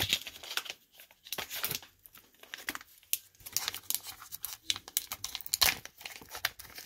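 A foil pouch being torn open and handled, giving a run of irregular crinkles, crackles and rustles.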